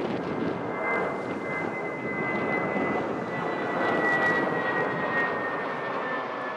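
Airbus A320-232's IAE V2500 turbofan engines climbing out after takeoff: a broad jet roar with a high whine that falls slowly in pitch, loudest about four seconds in.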